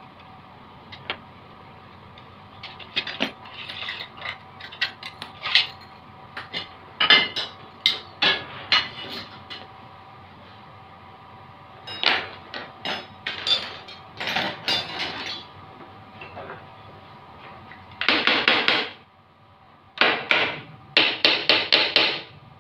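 Steel hand tools (a breaker bar and socket extensions) clanking and clattering against each other and the tiled floor, then quick runs of hammer blows on a Honda GX390 generator engine in the last few seconds, knocking parts loose during disassembly.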